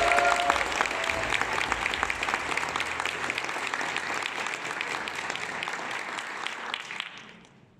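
Theatre audience applauding, the clapping thinning out and dying away near the end.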